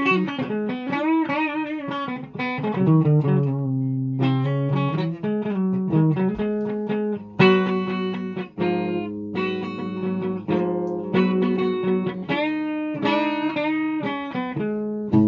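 Guitar being played alone: bending notes and short runs, then fuller chords picked again and again from about seven seconds in.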